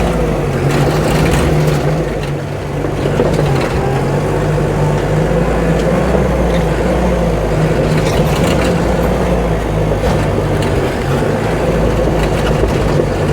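Caterpillar D5 bulldozer's diesel engine working under load, its pitch sagging and recovering as it cuts and pushes dirt.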